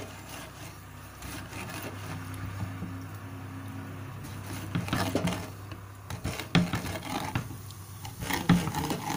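Wooden rolling pin rolling and knocking on a wooden chakla board as a stuffed paratha is rolled out, with irregular knocks and scrapes through the second half. A steady low hum runs underneath.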